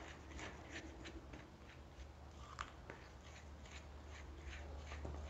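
Spoon stirring a flour-and-cream cookie dough in a glass bowl: faint scraping strokes, about two or three a second, as the flour is worked into the wet mixture.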